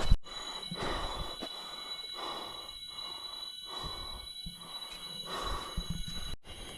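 A person breathing hard in repeated heavy breaths while hiking, over a steady high-pitched whine in the background.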